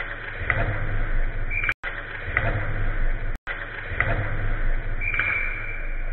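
Ice hockey play on the rink: skates scraping and sticks clattering on the ice, with a steady hollow rink rumble. The audio cuts out for a split second twice.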